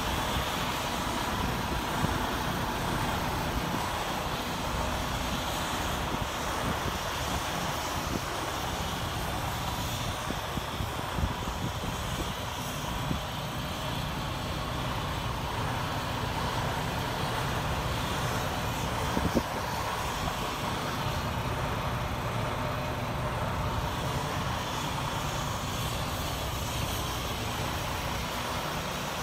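Steady low vehicle rumble with a faint steady tone in the first half and a few brief clicks, the sharpest about two thirds of the way through.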